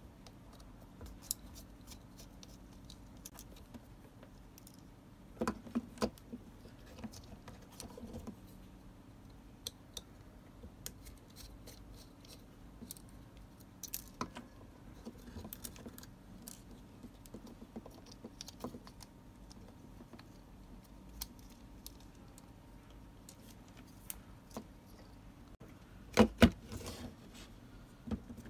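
Scattered small clicks, taps and scrapes of a little screwdriver prying at the hard plastic housing and parts of a Dremel rotary tool during disassembly. Short clatters of a few louder knocks come about five and a half seconds in and again near the end.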